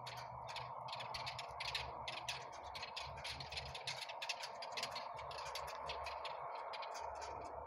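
Dense, irregular ticks and clicks, several a second, from a flock of small birds feeding on gravel, over a steady faint hum.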